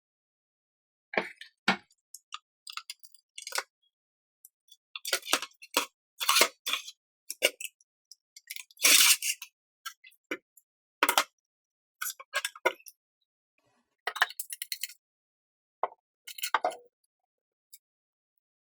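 Irregular clinks and knocks of small hard parts being handled, in short clusters separated by silent gaps, the loudest about halfway through.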